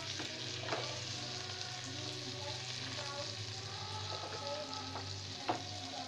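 Bread sizzling in butter in a stovetop sandwich maker over a gas flame, a steady hiss. A wooden spatula knocks sharply twice against the bread and pan while spreading potato filling, once near the start and once near the end.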